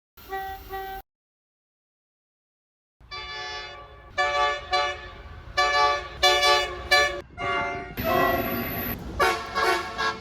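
Australian train horns sounding in short clips joined by abrupt cuts: two quick toots in the first second, silence, then from about three seconds in a longer blast followed by a string of short blasts that last to the end.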